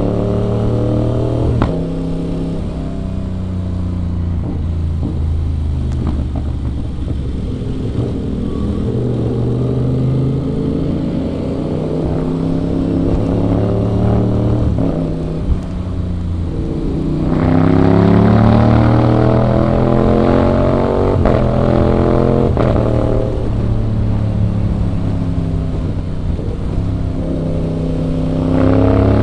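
Aprilia RS 660's parallel-twin engine under way, revving up and back down again and again. The pitch climbs under acceleration and drops back several times, with the loudest, hardest pull about seventeen seconds in.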